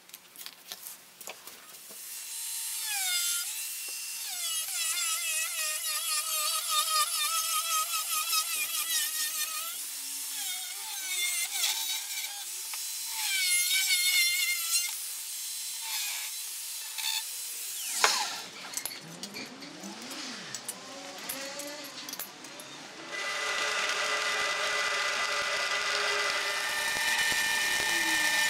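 Angle grinder cutting steel, its motor whine rising and falling as it bites. About 18 seconds in the sound changes abruptly, and near the end it gives way to the steady hiss and crackle of arc welding.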